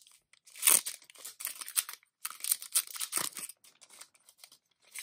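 Clear plastic sleeve crinkling and rustling in several bursts as it is opened and a small spiral-bound desk calendar is slid out of it; the handling quiets down about three and a half seconds in.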